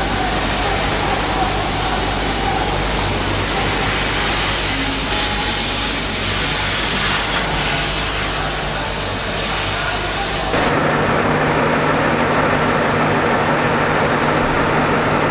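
Loud, steady machinery noise of a packaging line running cartons on a conveyor: a hiss over a low hum. About ten seconds in it changes abruptly to a duller noise with a steady low hum.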